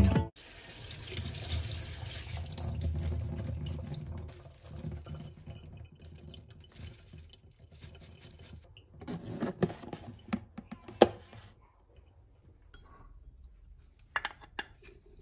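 Kitchen tap water running into a stainless steel sink for about four seconds, then stopping. After it come drips and handling of washed salad leaves and dishes, with a few sharp knocks and clinks in the middle and two more near the end.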